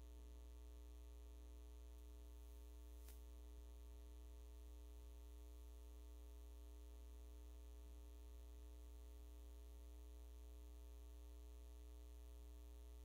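Near silence apart from a steady low electrical mains hum with a ladder of faint overtones, and one faint click about three seconds in.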